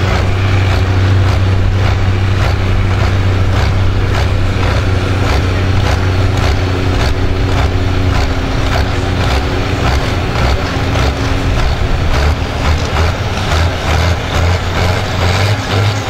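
John Deere 4440 tractor's six-cylinder diesel engine running steadily with a deep hum, then revving in repeated surges over the last few seconds as the flag is waved for the pull.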